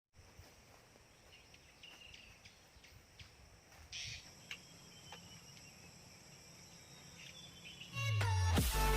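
Insects, crickets among them, keep up a steady high trill, with scattered faint bird chirps and a few light clicks. Loud electronic music cuts in near the end.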